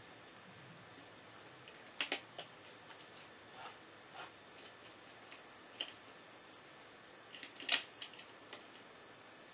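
Plastic Lego bricks clicking as they are handled and pressed together, a few scattered sharp snaps, the loudest about two seconds in and near the end.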